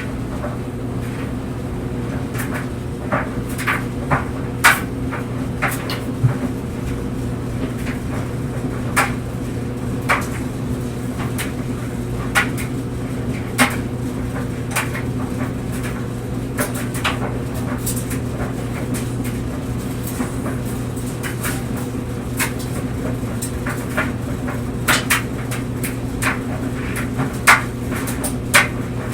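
Clothes dryer running with a steady hum while clothes tumble in the drum, giving irregular knocks and clicks about every second or so, a few of them sharper than the rest.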